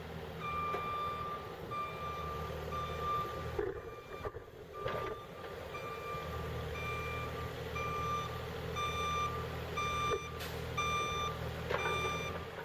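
Kubota KX040-4 mini excavator's travel alarm beeping about twice a second as the machine tracks, over the steady low hum of its diesel engine.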